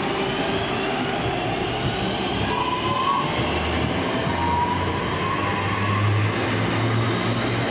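Northern Class 323 electric multiple unit running past at close range: steady wheel-on-rail noise, with the traction motors' whine gliding upward in pitch as it picks up speed.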